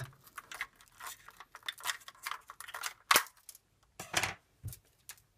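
A small knife scraping and cutting clear tape off the hard plastic underside of a die-cast model car, the tape rustling and scratching in short, irregular strokes, with one sharp click about three seconds in.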